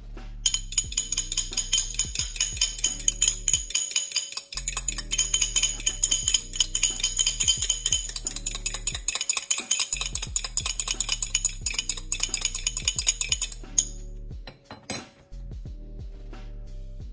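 A metal fork whisking rapidly in a small ceramic bowl, with quick dense clinks against the bowl's sides; it stops about 14 seconds in, followed by a couple of sharp knocks. Background music plays underneath.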